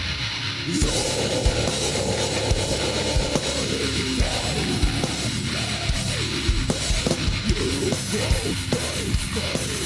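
Heavy metal song: electric guitars and a drum kit, with the full band coming in about a second in and the drums keeping a steady beat.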